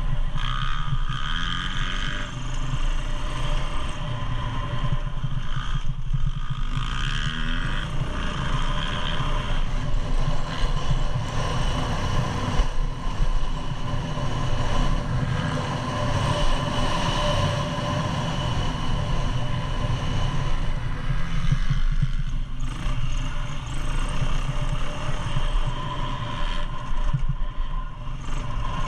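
Motocross dirt bike engine running hard on a dirt track, its pitch rising and falling with the throttle as the bike speeds up on a straight and slows into a corner near the end, over a continuous low rumble of wind and ground noise.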